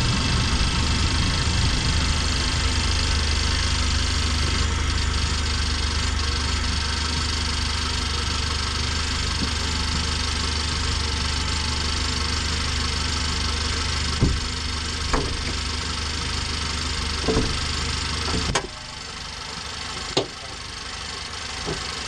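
LDV G10 van's turbocharged petrol engine idling steadily, with steady high whistling tones over the low hum: the annoying engine whistle the owner is chasing. A few sharp knocks come in the second half, and about three-quarters of the way through the low engine hum stops abruptly, leaving a fainter high-pitched noise.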